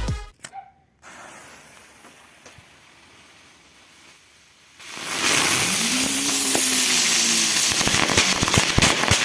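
Firework going off: after a few quiet seconds, a loud steady hiss full of rapid crackles and pops starts about five seconds in and keeps going.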